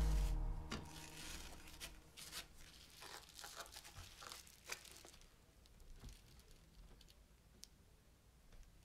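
Rustling and crinkling from hands handling an LCD panel and laying it onto the printer plate, busiest in the first half, with a few light ticks and taps later on.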